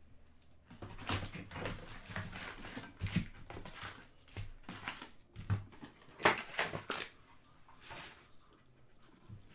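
Trading-card packs being handled and pulled from a cardboard box: the pack wrappers crinkle and rustle, with irregular taps and scrapes of cardboard and packs set down on the table, the sharpest tap about six seconds in.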